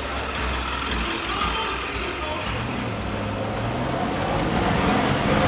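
Car engine and road noise heard from inside the cabin while driving slowly through town streets, with the engine note rising a little about halfway through.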